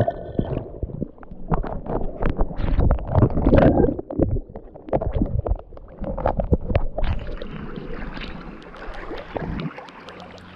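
Sea waves splashing and washing in against the shore, with wind rumbling on the microphone. About seven seconds in the splashing gives way to a softer, steady hiss of water.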